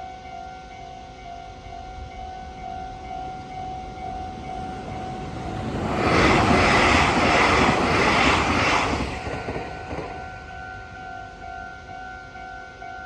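Japanese level-crossing warning bell ringing with a rapid repeated 'kan-kan' tone. About six seconds in, a Meitetsu electric train rushes through the crossing, drowning out the bell for about three seconds before the bell is heard again.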